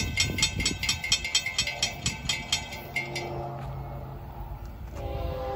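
Railroad crossing bells ringing rapidly, about four to five strikes a second, stopping about three seconds in once the gate arms are fully down. Near the end a locomotive horn starts blowing a steady chord.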